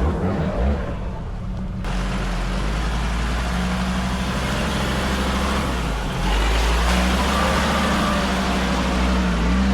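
Off-road vehicle's engine running at steady revs, the hum settling in about two seconds in and getting louder just after six seconds.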